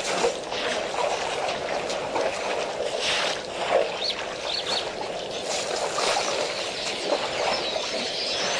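Water splashing and trickling as an African elephant drinks at a waterhole, with a few short bird chirps about four seconds in.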